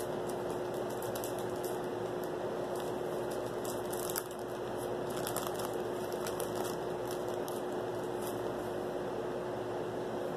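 Plastic poly mailer bag crinkling and crackling in short irregular bursts as its sealed end is gripped and tugged, the glued seal not giving. A steady hum runs underneath.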